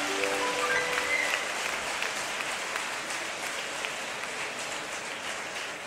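Concert audience applauding after a song, the clapping slowly dying away.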